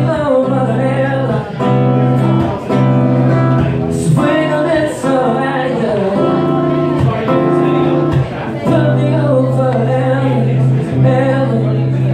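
A man singing live into a microphone while strumming an acoustic guitar: long held, bending vocal notes over steady strummed chords.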